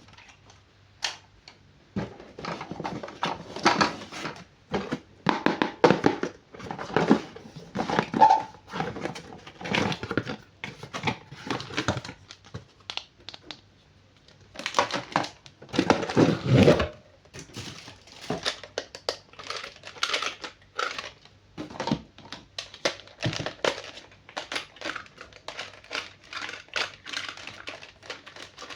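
Packaging crinkling and rustling in irregular bursts as toys are unwrapped and handled, with a short lull about halfway through.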